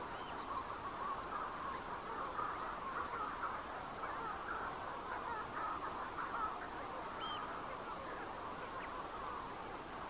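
Many Manx shearwaters calling at once, their cries overlapping in a continuous, dense chorus.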